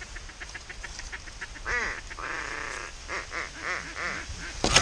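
Mallard-style duck quacking: a quick run of short notes, then a string of longer drawn-out quacks, with a sharp knock near the end.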